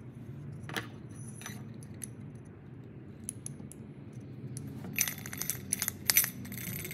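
A few scattered light clicks, then a quick run of sharp metallic clinks about five seconds in, as a metal flat-top lamp socket cover and its plastic strain relief are handled and pressed together by hand.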